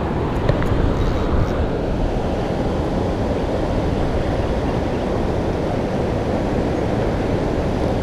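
Wind buffeting the microphone: a steady low rumbling noise, with a few faint ticks in the first second or so.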